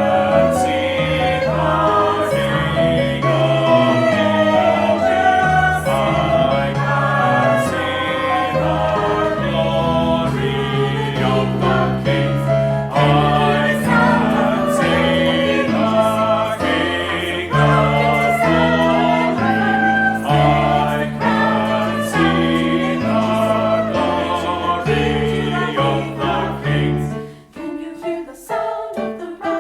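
Church choir singing a gospel-style anthem in full harmony over stepping bass accompaniment. A little over 27 seconds in, the choir breaks off and the music thins to a quieter, sparser passage.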